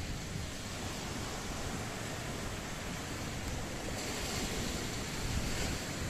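Sea surf washing on a beach, a steady hiss with wind rumbling on the microphone; the wash grows brighter about four seconds in.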